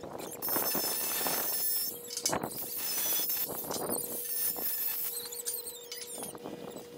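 Cordless angle grinder grinding against a galvanized steel box-section frame: a high-pitched grinding whine that is strongest from about half a second to two seconds in, then lighter, intermittent grinding.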